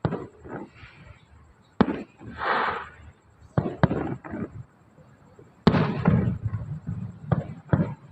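Aerial fireworks bursting: a string of sharp bangs, each ringing on briefly, the loudest about two seconds and six seconds in.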